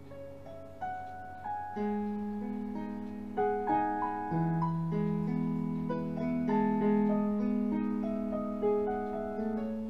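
Background music: a slow keyboard melody of held notes over longer sustained low notes.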